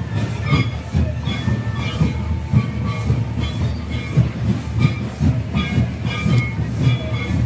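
Traditional Santali dance drumming, a steady rhythm of low drum beats about twice a second, with a repeating high melody over it.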